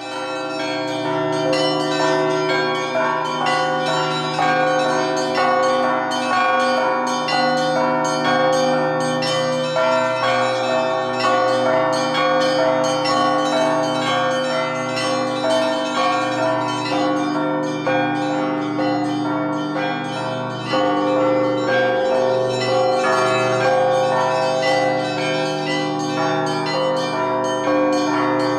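Set of Russian Orthodox church bells rung by hand in a festive peal: rapid strokes on the small treble bells over the sustained ringing of the middle and larger bells, kept up without a pause.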